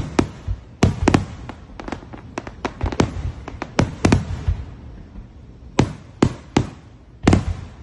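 Fireworks going off: an irregular run of sharp bangs, several close together, each trailing a short echo.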